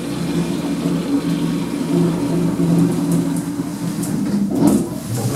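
Lift machinery humming steadily while the lift car travels, with a short noisy burst near the end.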